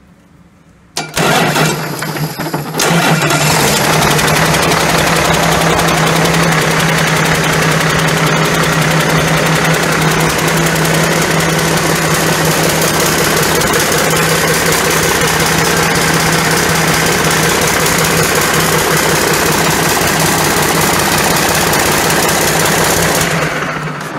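A 500 hp 2010 Cummins ISX inline-six diesel is started on a test stand about a second in, uneven for a couple of seconds as it catches, then runs steadily. It drops away near the end.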